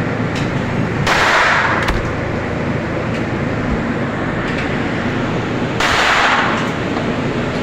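Two gunshots at a shooting range, about five seconds apart, each heard as a short burst of noise lasting under a second, with a few faint sharp cracks between them. A steady loud rumble runs underneath.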